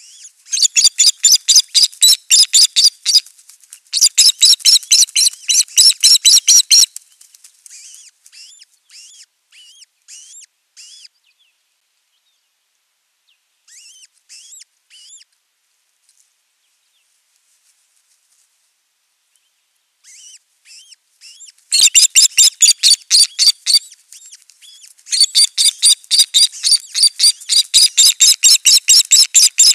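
Osprey calling: bouts of loud, rapid, high-pitched whistled notes, about five a second, with fainter calls and a pause of several seconds between the bouts.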